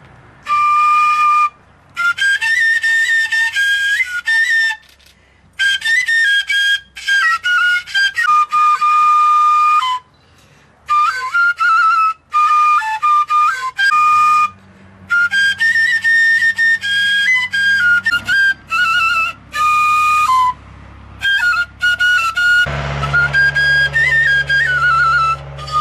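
Sipsi, a small Turkish single-reed folk pipe, played solo: a high-pitched, ornamented melody with quick trills, in short phrases broken by brief pauses for breath.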